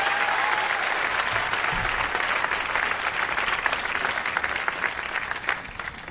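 Concert audience applauding: a dense patter of many hands clapping that thins out and fades toward the end.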